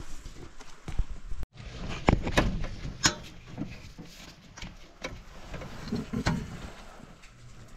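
Scattered clicks and knocks of tools and metal parts being handled during work on a diesel fuel filter and its lines, the loudest about two and three seconds in. The sound cuts out completely for a moment about a second and a half in.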